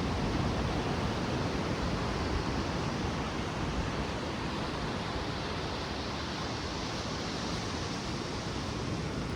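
Ocean surf washing steadily at the shoreline.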